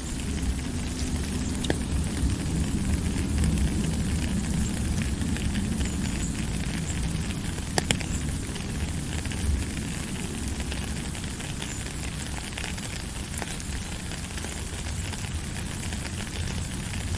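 Steady rain falling: an even hiss with scattered sharper drop ticks over a low rumble.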